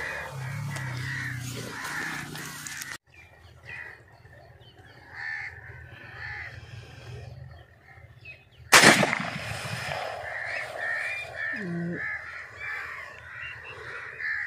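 A single shotgun shot about nine seconds in, by far the loudest sound, fired at a dove in flight. Birds call in the background throughout.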